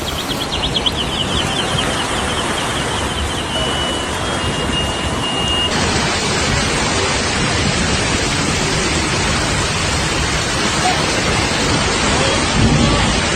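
Loud steady rush of floodwater and rain. A faint high pulsing tone, then a brief steady high tone, sits on top in the first half. The noise changes abruptly about six seconds in.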